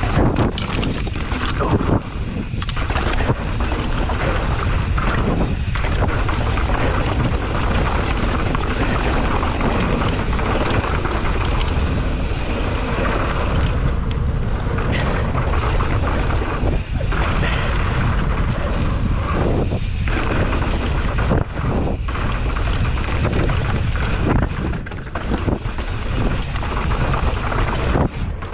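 Wind buffeting the microphone: a loud, continuous low rumble that dips briefly now and then.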